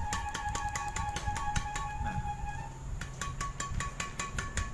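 The string bed of a Hi-Qua Merauke badminton racket, strung at 27 lbs with its stock Hi-Qua ISO 66 string, slapped rapidly against the palm, about eight pings a second. Each strike gives a ringing ping whose pitch is the usual ear test of string tension. The pinging stops briefly about three seconds in, then resumes a little higher in pitch.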